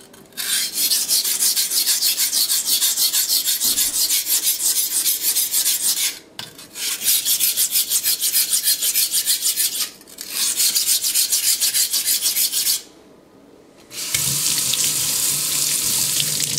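A steel kitchen knife being sharpened on a whetstone: the blade is stroked rapidly back and forth, giving a fast, even rasping in three runs with brief pauses between them. Near the end, a tap runs water steadily into a steel sink.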